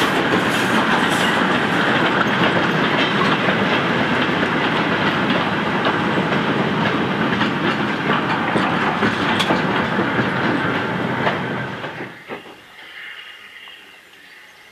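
Goods train of short wooden vans rolling past, wheels clattering steadily over the rail joints. About twelve seconds in the sound drops away to a quieter, distant hiss of steam.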